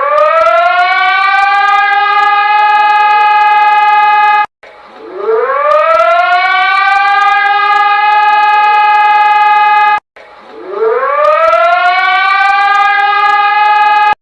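Civil-defence siren winding up quickly to a steady tone three times, each time cut off abruptly and restarting, as a looped siren recording.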